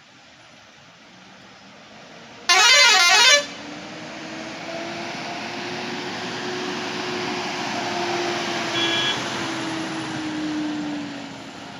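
A loud warbling horn sounds for about a second, two and a half seconds in. Then a large coach's engine grows louder as the bus crawls round the bend and passes close by, fading near the end.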